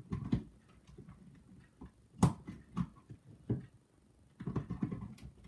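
Handling noise of plugs and cords being moved at a power outlet: a few sharp clicks and knocks, the loudest about two seconds in.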